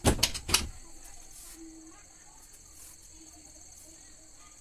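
Crickets chirring steadily, with three quick knocks in the first half-second.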